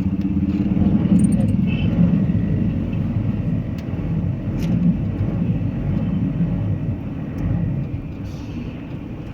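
Steady low rumble of a moving vehicle, with faint voices in the background.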